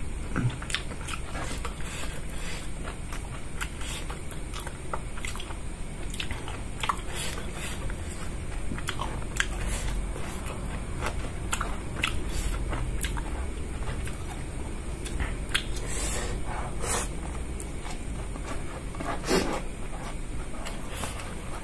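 Close-miked chewing of rice and side dishes eaten by hand: irregular mouth clicks and smacks, several a second at times.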